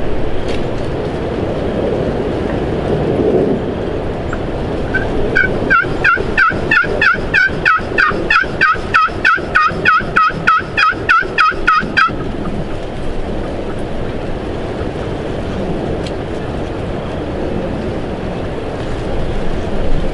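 Turkey yelping: a quick run of about twenty yelps, some three a second, starting about five seconds in and stopping abruptly about seven seconds later.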